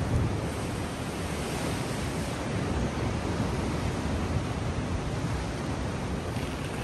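Steady rush of ocean surf, with wind buffeting the microphone.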